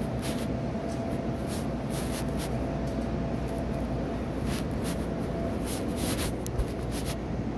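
Steady low rumble with a faint steady hum underneath, broken by short rustles about once a second as the handheld phone rubs against a hoodie.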